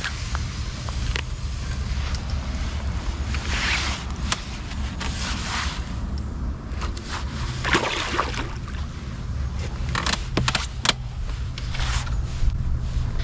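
Short bursts of splashing and scraping as a landing net is worked in and lifted out of the water, three or four times, over a steady low rumble.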